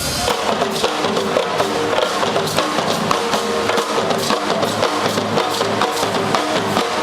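Music with percussion: a quick run of light hits over sustained pitched notes.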